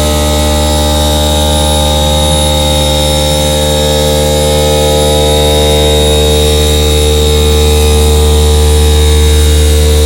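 Vertical machining centre spindle turning a grinding wheel in face grinding: a loud, steady machine whine over a strong low hum, growing slightly louder toward the end.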